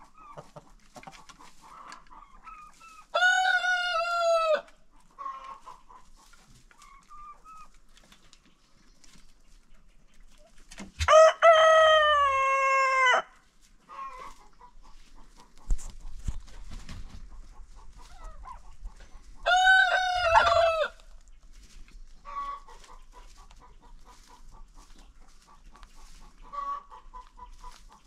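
Roosters crowing: three long crows, a few seconds apart, the middle one loudest. Hens cluck quietly in between.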